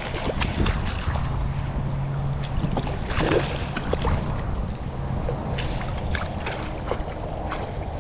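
Wind buffeting the microphone over water sounds, with many small sharp splashes or ticks. A low steady hum runs for a few seconds from about a second in.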